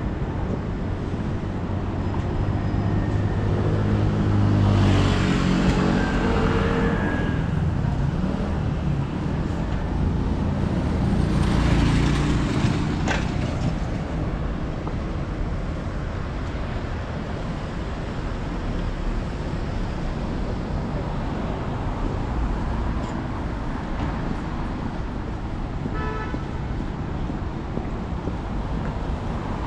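City street traffic: a steady rumble of road noise, with two louder vehicles passing about five and twelve seconds in. A short beep sounds near the end.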